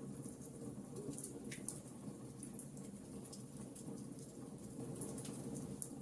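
Fireplace fire crackling: scattered sharp pops and ticks over a soft, steady low rustle of the flames.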